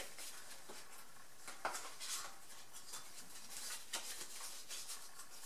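Faint scattered scratches and light metallic clinks from marking and handling a small piece of flat steel clamped in a vise.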